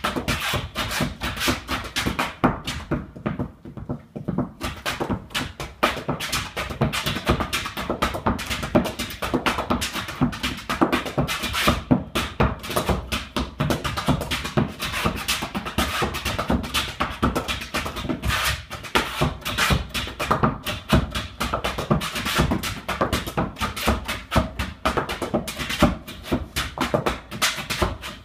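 Solo flat-footing dance: hard shoes striking a dance board in fast, dense rhythmic patterns of heel and toe strikes. The strikes thin out briefly about three to four seconds in, then carry on.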